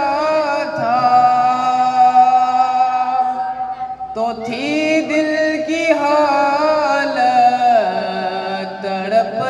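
A young man's solo, unaccompanied voice singing a naat, holding long drawn-out notes that slide between pitches with no clear words.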